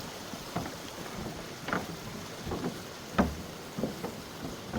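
Steady rushing of a waterfall, with irregular short knocks over it, about one every half second to second, the loudest a little past three seconds in.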